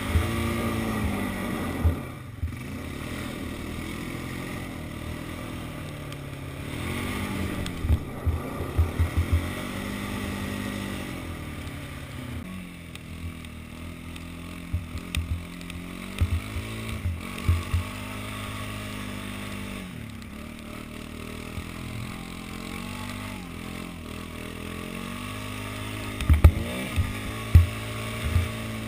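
Rancher ATV engine running while it is ridden through snow, its pitch rising and falling again and again as the throttle is opened and eased off. Clusters of sharp knocks come through, with several loud ones near the end.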